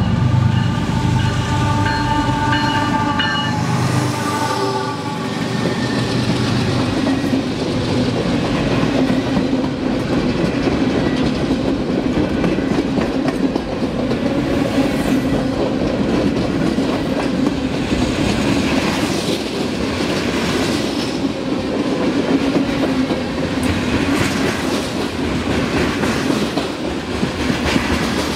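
Norfolk Southern freight train passing a grade crossing close by. The diesel locomotive's horn sounds for about the first four seconds over the engine rumble, then the freight cars roll past with a steady rumble and rhythmic clickety-clack of the wheels.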